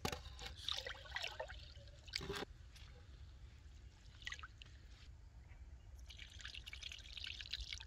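Rice being washed by hand in a shallow terracotta bowl of water: fingers swishing through the grains, with soft, irregular splashes and trickles. It is busiest early on and again near the end.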